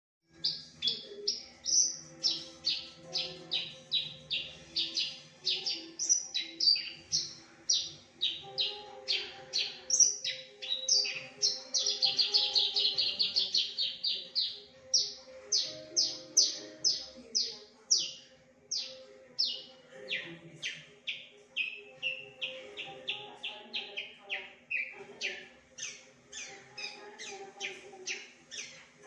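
Javan bush lark (branjangan) singing a loud, varied song: a long run of short, sharp notes about two a second, packing into a fast trill around the middle.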